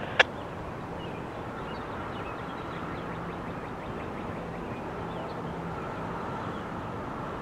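A single sharp click near the start, a radio scanner's squelch closing, then steady outdoor background noise with faint scattered bird chirps and a low distant hum.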